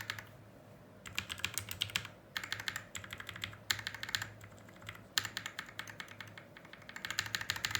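Mechanical keyboard being typed on in five quick bursts of rapid keystrokes: a sound test of freshly fitted, unlubed AKKO Rose Red linear switches.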